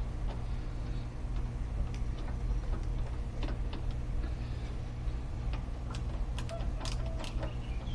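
Light, irregular clicks and ticks of a hand tool working a screw out of a car's plastic rocker panel cover, over a steady low hum. The clicks come closer together near the end.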